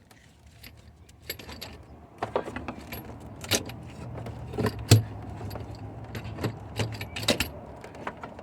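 Metal tool and hardware clinking while the battery's mounting nuts and brackets are worked loose: a run of light metallic clicks and rattles, with one sharper clank about five seconds in.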